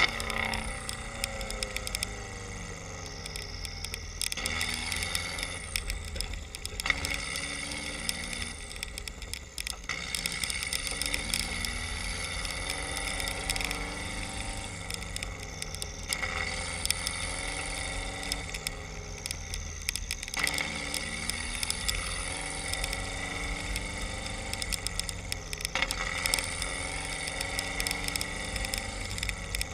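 Subaru WRX's turbocharged flat-four running on a Carberry rotational-idle anti-lag tune. The engine note rises and falls every few seconds over a steady hiss, with frequent crackling pops from the exhaust.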